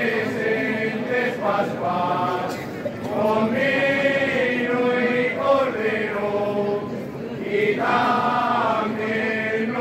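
A group of voices singing a slow traditional chant, in phrases of long held notes.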